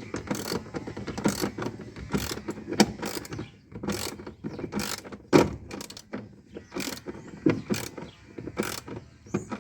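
Irregular clicking and clacking of a top-loading washing machine's transmission and clutch gears being turned and handled by hand, with sharp clicks about once or twice a second over a continuous rattle.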